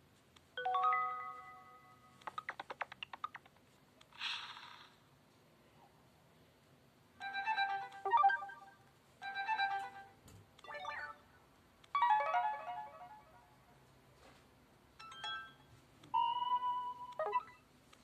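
Sony Ericsson Xperia X10 Mini Pro's preloaded Android notification sounds previewed one after another through the phone's small speaker: about nine short chimes and jingles, each lasting a second or two, with brief pauses between them.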